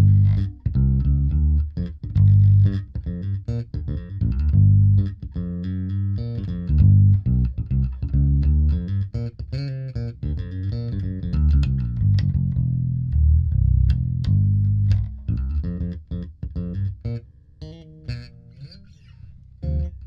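Electric bass guitar played fingerstyle through a small 100-watt hybrid bass combo with one 10-inch speaker and a tweeter, heard raw through a studio microphone: a busy run of plucked notes with deep low end. Near the end the playing drops quieter to a few higher notes with sliding pitch.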